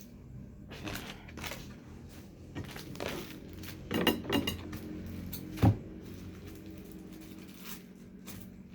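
Objects being handled and set down on a table: scattered light knocks and clinks, with one sharper knock a little past halfway.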